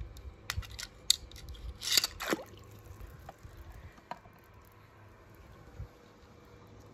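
Faint handling noise: scattered light clicks and taps, with a short swish about two seconds in.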